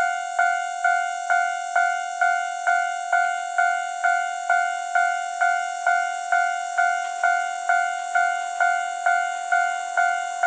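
Japanese level-crossing warning bell ringing steadily, an even two-tone clang about twice a second.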